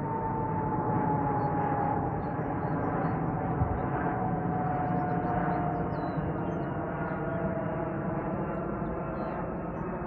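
Boeing C-17A Globemaster III's four turbofan engines overhead on approach: a steady jet rumble with a high whine that slowly falls in pitch as the aircraft passes and draws away.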